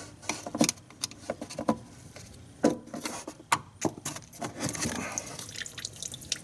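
Hands working a windshield washer pump and its hose and wiring connector at the washer reservoir: a series of irregular small plastic clicks, knocks and rattles.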